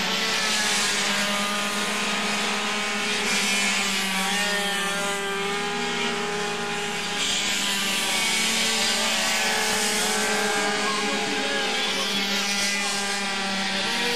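Several 50cc two-stroke racing mopeds and scooters running hard on track, their engine notes overlapping and wavering up and down in pitch as they pass and change speed.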